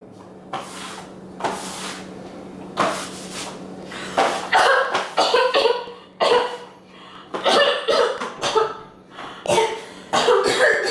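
Repeated human coughing in a series of separate fits. The first few coughs are breathy, the later ones rougher and voiced. A faint steady hum runs under the first half.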